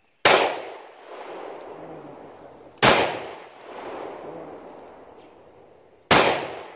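Three 9mm pistol shots, the second and third about three seconds apart after the first, each trailing off in a long echo that swells again about a second later. Faint high pings sound between the shots.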